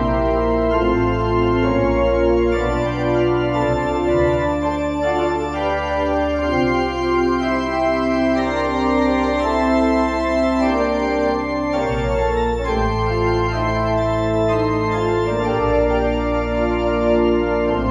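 Organ playing slow sustained chords over long-held deep bass notes, the chords changing every second or so.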